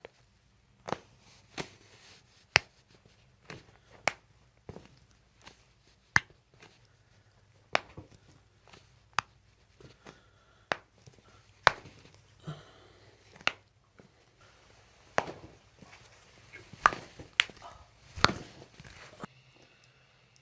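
A long run of sharp, separate joint cracks from a patient's spine during a chiropractic adjustment. There are about twenty of them at irregular intervals, roughly one a second, over a faint steady hum.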